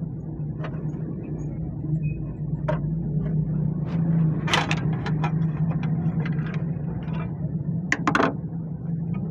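Car engine running steadily with a low hum, with several sharp clicks and knocks on top, the loudest a pair near the end.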